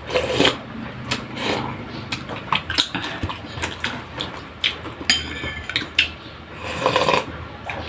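Metal spoons and forks clinking and scraping on plates and bowls during a meal, a scatter of short clicks and knocks, one ringing briefly a little after five seconds.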